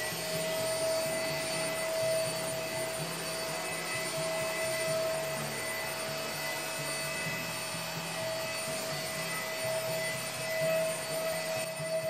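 Puweike P80 cordless stick vacuum running at full speed on carpet: a steady, high motor whine over a rushing hiss of suction, holding an even pitch as the floor head is pushed back and forth.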